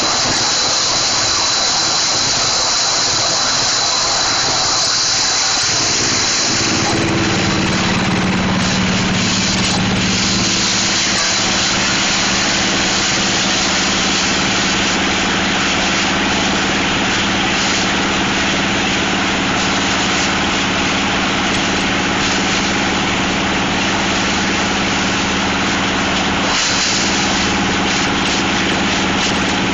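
Plastic shredder machine running with a loud, steady mechanical noise and hiss; about seven seconds in, a steady hum with several tones comes in as its motor settles into running.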